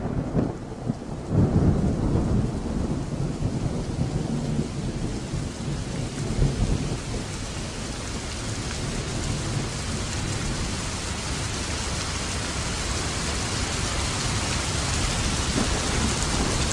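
Low rumbling and a steady rushing hiss, like thunder and heavy rain. The rumble swells twice, near the start and about six seconds in, and the hiss then grows brighter and steadier.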